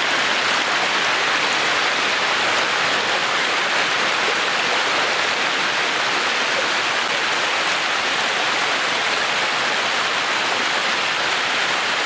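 Stream water pouring over a low stone dam into a pool, a steady, unbroken rush of white water.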